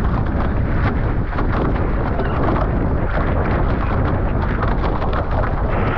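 Wind buffeting the camera microphone: a loud, continuous low rumble with a constant crackle.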